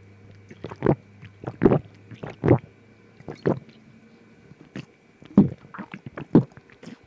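Drinking through a straw from a glass: about a dozen short slurps and swallows, irregularly spaced, about one or two a second.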